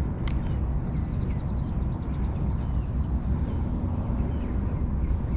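Steady low outdoor rumble with faint, scattered bird chirps, and a single sharp click just after the start.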